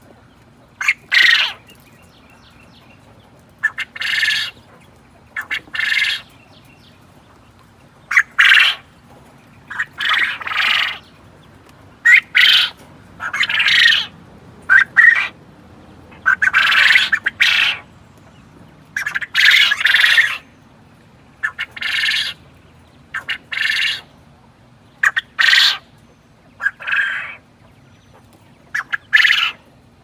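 Quail calling repeatedly: short calls, some single and some in quick runs of two or three, with pauses of a second or two between them.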